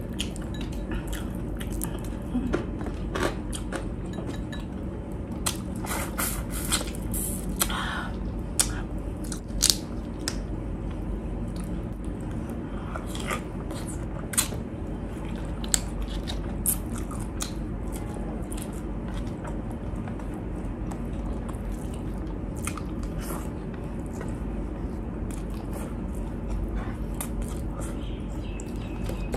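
Close-miked eating: a person chewing and biting shrimp, with wet mouth sounds and scattered sharp clicks and crackles, more of them in the first half.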